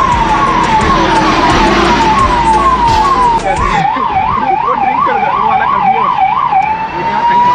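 Police patrol car's electronic siren, heard from inside the cabin: quick falling sweeps about twice a second, then, about three and a half seconds in, a faster up-and-down warble, changing near the end into a slow rising wail, over traffic noise.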